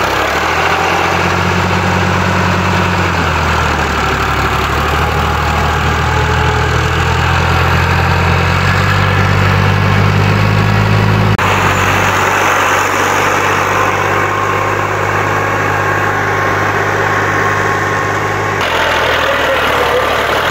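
New Holland Ghazi 65 hp tractor's diesel engine running steadily as it pulls an 11-tine cultivator through mud. The engine note jumps abruptly twice, about halfway through and again near the end.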